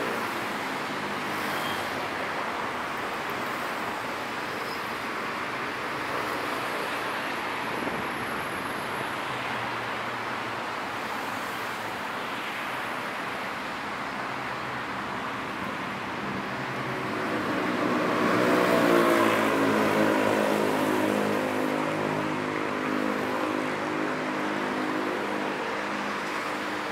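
Steady road-traffic noise with engines humming. About two-thirds of the way through, a louder vehicle passes close by, its engine note dropping as it goes.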